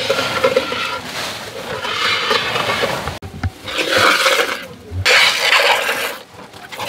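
Milk squirting from a cow's teats into a pail during hand milking: hissing streams coming in runs of about a second, with a couple of dull knocks from the pail.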